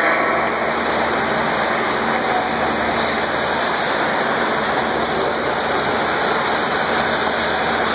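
Steady hiss-like din of radio-controlled 4WD buggies racing on an indoor dirt track, echoing in the arena.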